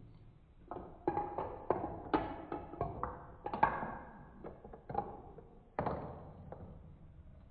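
Marbles rolling and clattering down a plastic Trix Tracks marble run: a quick, irregular series of taps and clicks with short ringing pings. It begins about a second in, and another burst comes near the end.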